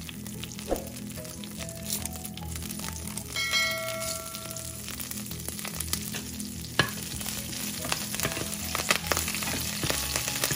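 Whole spices (dried red chillies, cinnamon, cloves and fennel seeds) sizzling in hot oil in a nonstick frying pan. Fresh curry leaves are dropped in partway, and near the end a wooden spatula stirs them, scraping and knocking against the pan.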